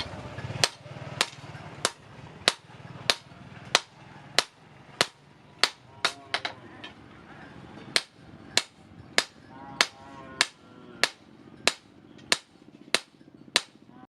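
Hand hammer striking steel on an anvil in a steady forging rhythm, about one and a half ringing blows a second.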